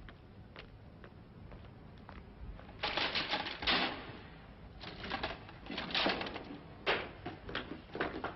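A rattling metal clatter about three seconds in, typical of a collapsible lattice gate being pushed aside, then sharp footsteps going quickly down stone station stairs, about two or three steps a second.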